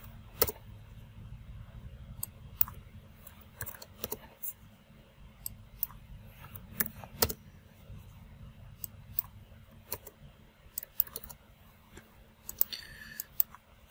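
Irregular clicks of a computer mouse and keyboard as numbers are typed into fields, over a low steady hum.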